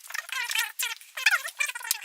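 Quick runs of high, wavering chirps and chatter from a small animal, rising and falling in pitch in short bursts.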